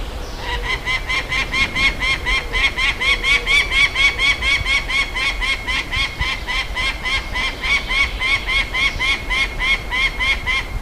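Juvenile peregrine falcon calling: a long, even run of short repeated notes, about four a second. The run starts about half a second in and stops just before the end.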